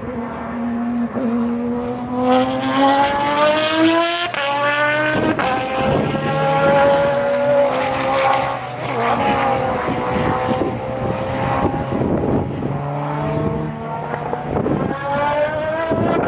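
Race car powered by a Suzuki Hayabusa motorcycle engine, accelerating hard through the gears. The engine note climbs, drops sharply at an upshift about four seconds in and climbs again, runs high as the car passes, then rises once more near the end.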